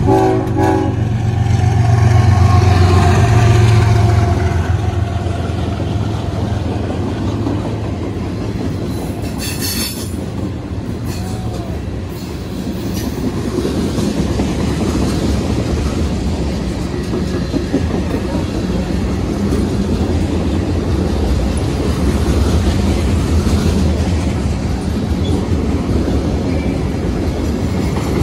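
A CSX diesel freight locomotive passing close, a horn note ending about a second in, its engine rumble loudest a few seconds in, then a long string of freight cars rolling by with steady wheel clatter on the rails. A brief hiss comes about ten seconds in.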